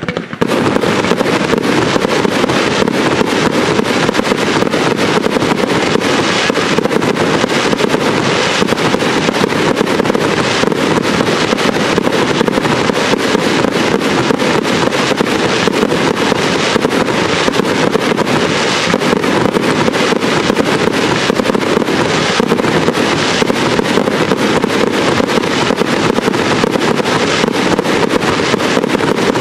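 Professional fireworks display: a continuous dense barrage of crackling and popping from bursting shells, starting abruptly and keeping up without a break.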